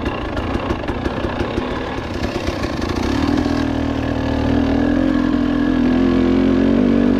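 KTM 300 XC two-stroke single-cylinder dirt bike engine under way on a trail, at first uneven and pulsing as the throttle is worked. About three seconds in it settles into a steadier, louder note whose pitch rises slowly as the bike climbs.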